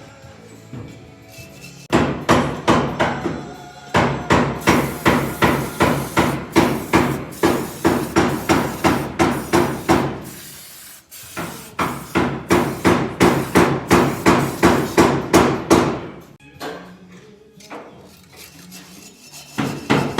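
Hammer blows struck in rapid, steady runs of about three a second, in three long bursts with short pauses between.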